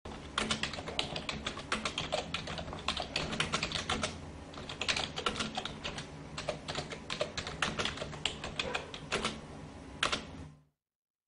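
Keyboard typing sound effect: rapid, irregular key clicks with a faint low hum beneath, stopping shortly before the end.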